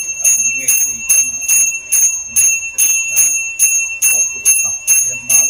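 Hindu puja hand bell rung steadily during the offerings, about two to three strokes a second, each stroke ringing on with a clear high tone.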